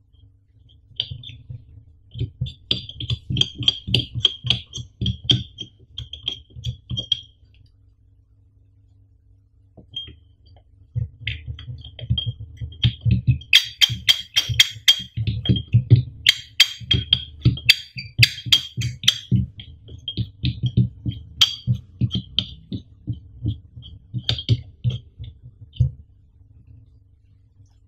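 Metal parts of a Samson MD5 desktop microphone stand being handled and fitted together on a tabletop: dense runs of quick clicks, taps and scrapes. There is a pause of a few seconds about a third of the way in.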